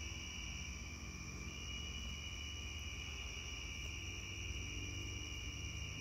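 Steady chorus of night crickets, a constant high-pitched trill, over a low, even rumble.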